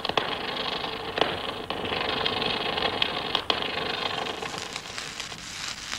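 Manual metal arc (stick) welding arc burning: a steady crackling hiss with a few sharp pops as the flux-coated electrode melts into the weld pool.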